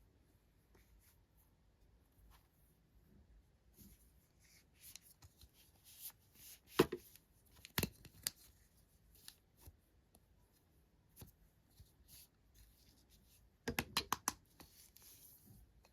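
Toy packaging being handled and opened by hand: scattered light taps, clicks and rustles, two sharp clicks near the middle, and a quick run of clicks near the end.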